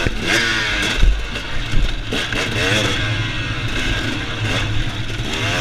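2017 Husqvarna TX 300's two-stroke single-cylinder engine revving up and down several times as the dirt bike is ridden along a trail, with wind noise on the helmet-camera microphone. There is a thump about a second in.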